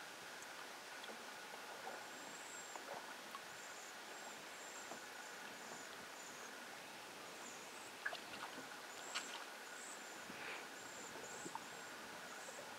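Soft water sounds from a bull moose feeding with its muzzle in shallow water: a few brief splashes and drips, the clearest about two-thirds of the way through. Under them is a steady hiss with thin, high chirps repeating every half second or so.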